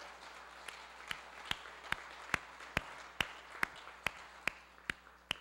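A man clapping his hands in a steady beat, a little over two claps a second, about a dozen claps in all, over a faint even background noise that fades near the end.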